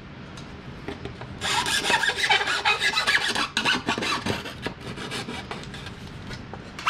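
Fine hand file rasping in quick strokes along the cut edge of a thin panel, cleaning it up. The strokes run hard for about three seconds from about a second and a half in, then go on more faintly.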